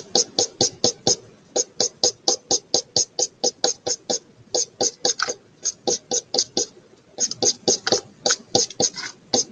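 Felt-tip marker scratching on a paper coffee filter in quick back-and-forth strokes, about four or five a second, with a brief pause about seven seconds in.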